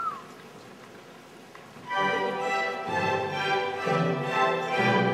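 A hushed hall, then about two seconds in an orchestra comes in with full sustained chords that change roughly once a second.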